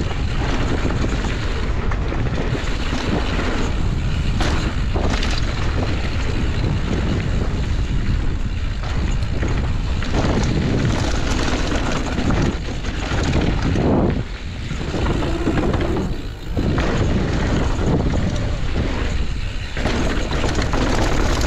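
Wind buffeting the helmet camera's microphone as a mountain bike rolls fast down a dirt and gravel trail, with the tyres running over the ground and the bike rattling and knocking over bumps.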